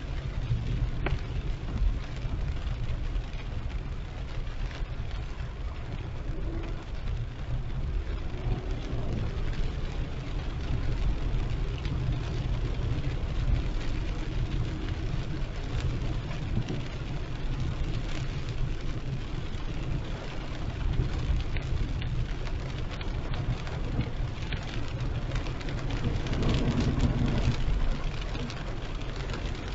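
Heavy rain pattering on a moving car over a steady low rumble of engine and tyres on the wet road.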